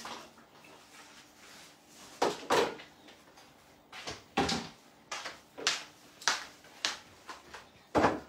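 A string of short kitchen knocks and bumps, about eight over six seconds, starting about two seconds in: things being handled and set down around the kitchen.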